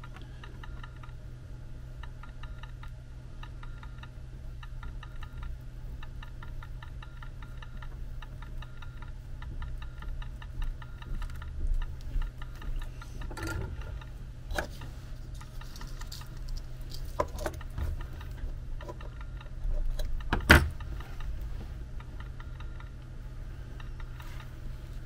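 Small clicks and rustles of wires and a soldering iron being handled at the bench during soldering, over a steady low hum and a faint regular ticking. A sharp click about twenty seconds in is the loudest sound.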